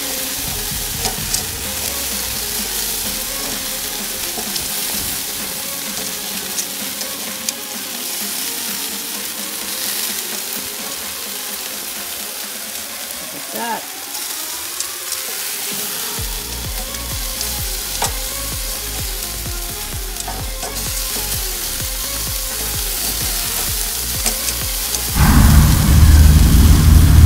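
Quail sizzling and crackling on a barbecue grill grate, fat hissing steadily with small pops, and a few light clicks of metal tongs. About two seconds before the end a loud low rumble sets in over the sizzling.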